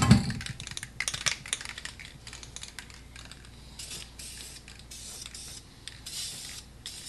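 Aerosol spray paint can sprayed in several short hissing bursts, after a run of light clicks and taps in the first second or so.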